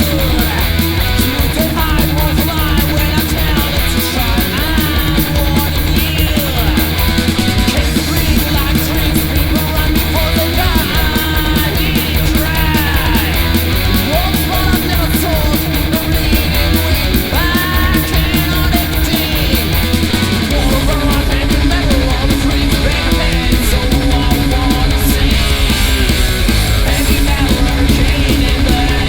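1980s thrash/speed metal song: distorted electric guitars, bass and fast drums, with a high yelled vocal line through roughly the first two-thirds. About two-thirds of the way through the vocal stops and the drumming shifts to a denser beat.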